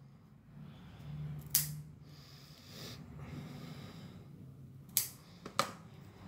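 Pet nail clippers snipping through a small dog's claws: three sharp clicks, one about a second and a half in and two close together near the end.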